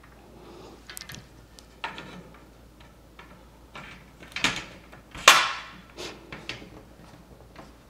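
Aluminium curtain-track sections being handled and fitted together: scattered light clicks and knocks, with a louder knock trailing off about five seconds in.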